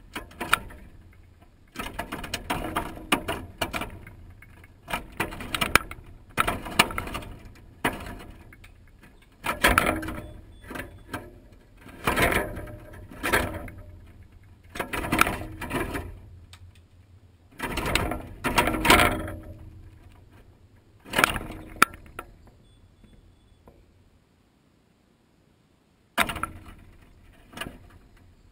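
Blue jay pecking and tugging at whole peanuts in a coiled wire-mesh feeder: repeated bursts of clattering and rattling as the peanuts knock against the metal coils, with a pause of a few seconds near the end.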